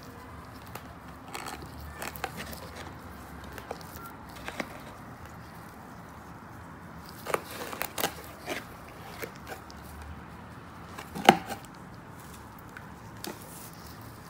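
Hands working loose potting soil around seedlings in a cut-open plastic bottle planter: scattered soft rustles and crackles, with one sharp click about eleven seconds in, the loudest sound.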